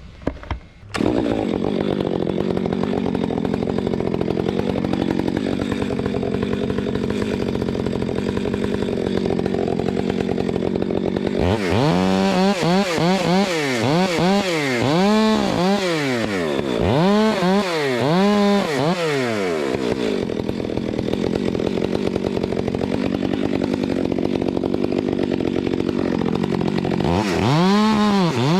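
Chainsaw running, starting abruptly about a second in. Its engine pitch rises and falls over and over in the middle and again near the end as the throttle is worked while cutting wood.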